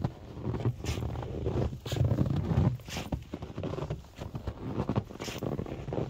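Footsteps crunching in packed snow, about one step a second, over a low rumble of handling noise.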